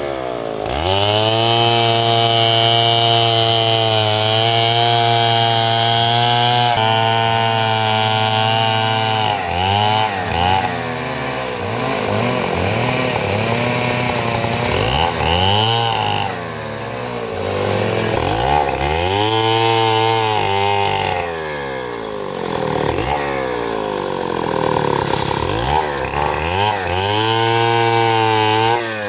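Stihl chainsaw engine running at high revs, then cutting timber: its pitch sags under the load and climbs back again and again.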